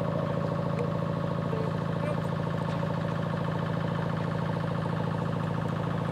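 A steady low buzzing hum that holds the same pitch and level throughout.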